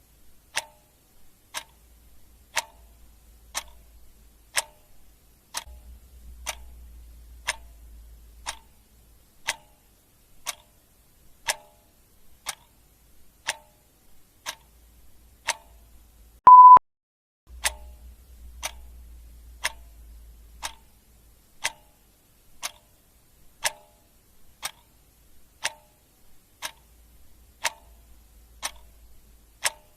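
Clock ticking sound effect: sharp, even ticks about once a second. A single short, loud beep about halfway through.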